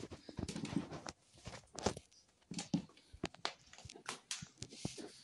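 Irregular light taps, clicks and rustles on a laminate floor from a sphynx cat moving among small toys.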